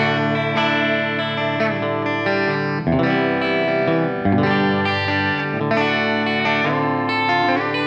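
A guitar played through effects, sounding sustained melodic notes that change every second or so, with a few bent notes near the end.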